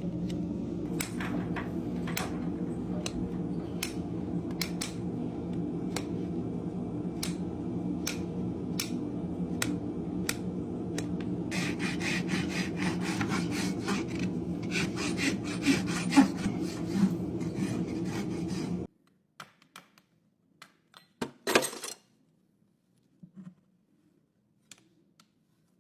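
Farrier's hoof rasp filing a horse's hoof in regular strokes about once a second over a steady low hum. It stops abruptly about 19 seconds in, followed by a few faint knocks.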